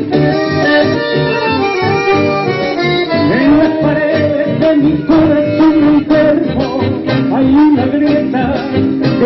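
Live band music led by an accordion melody over bass and a steady dance beat: the instrumental opening of a song.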